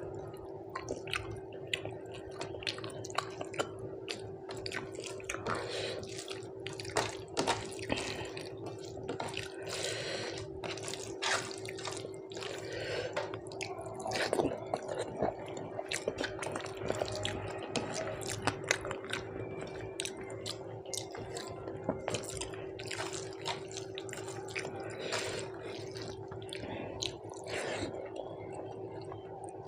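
Close-up wet eating sounds: chewing and lip smacks on rice with dal and fish curry, in many irregular wet clicks, over a steady faint hum.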